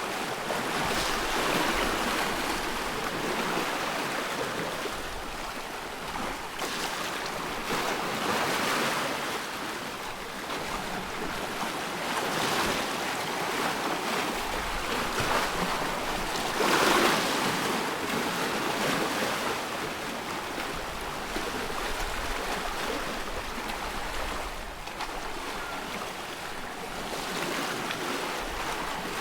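Small waves on a loch splashing and washing in a steady rush that swells and eases every few seconds, strongest about seventeen seconds in.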